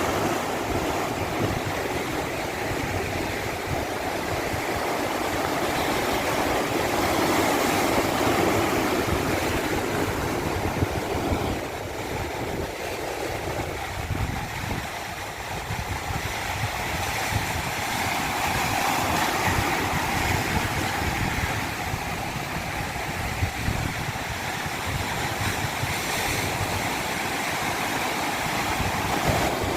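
Continuous rushing of flowing water, swelling and easing slowly over several seconds.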